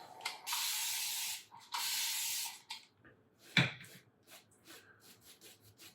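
Wet hands rubbing water over the face: two hissing strokes of about a second each, then a single knock and a few faint ticks.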